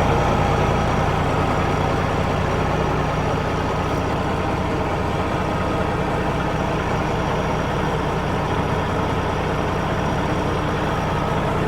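Caterpillar diesel engine in a Kenworth W900 truck idling steadily, running smoothly and sounding good.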